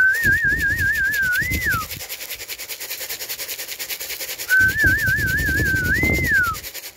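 A fancier's whistle calling Birmingham Roller pigeons in to the loft: two whistled calls, each a quick warbling trill that rises and then glides down at its end. A fast, even rattle runs underneath.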